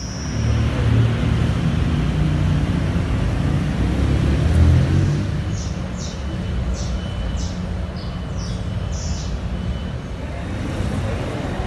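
Road traffic: a motor vehicle's low engine rumble that swells to its loudest just before halfway and then holds steady, with a string of short high chirps in the middle.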